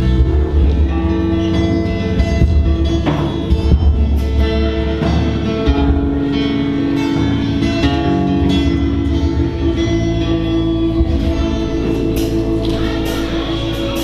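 Band music with guitar, low bass notes and drums, playing steadily.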